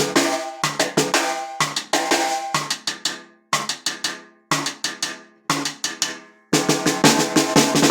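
Pearl brass-on-brass piccolo snare drum being played: short groups of quick strokes about once a second, each ringing on with bright overtones as it dies away. A longer, denser run of strokes begins near the end.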